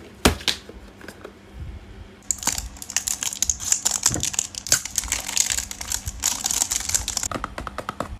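A few light taps and knocks of packaging being handled, then from about two seconds in a dense run of close, crisp crackling as clear plastic shrink wrap is peeled and crumpled off a clay mask box. The crackling stops shortly before the end.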